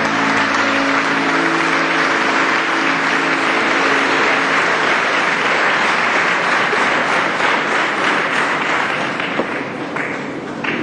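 Audience applauding, with the song's last held notes fading out beneath it over the first few seconds. The applause thins a little near the end.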